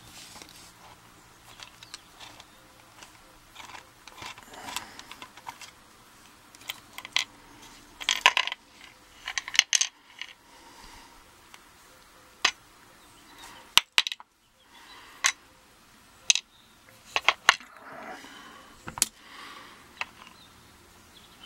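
Small metal padlock parts from an American Lock Series 20 (brass core, pins, screw, retaining plate) clinking and tapping as the lock is taken apart by hand and the pieces are set down on a wooden tray. Scattered light clicks, with a few louder clinks now and then.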